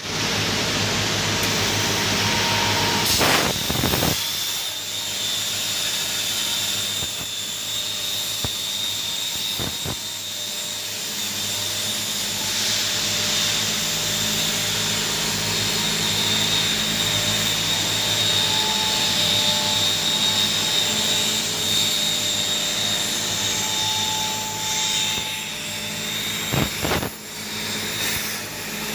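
CNC plasma cutter's torch cutting metal: a steady loud hiss of air and arc with a high steady whine and a low machine hum, briefly interrupted a few seconds in and again near the end.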